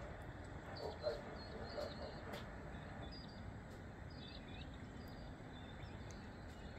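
Steady low wind rumble on the microphone, with faint high bird chirps scattered through the first half. A few murmured words are heard about a second in.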